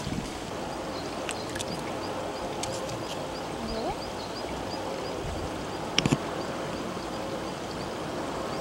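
Steady outdoor background noise with a few light clicks and a sharper double click about six seconds in. A faint high chirp repeats about three times a second through the second half.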